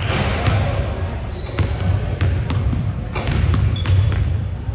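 Basketballs bouncing on a hardwood gym floor in a large echoing hall: irregular thuds at uneven intervals, over a steady low hum.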